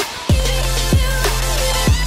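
Background music with a heavy beat: deep bass hits that drop in pitch, three in two seconds, under a busy upper layer.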